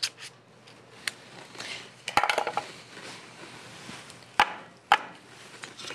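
Metal batter scoop knocking and clinking against a glass mixing bowl and a muffin tin while batter is scooped into paper liners: scattered knocks, with two sharp ones about half a second apart near the end.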